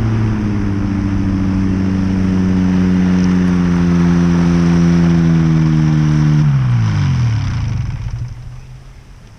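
Powered parachute trike's Rotax engine and propeller running steadily at low power, its pitch sagging slightly. About six and a half seconds in it is shut down, and the drone falls steeply in pitch as the propeller spins down, fading out near the end.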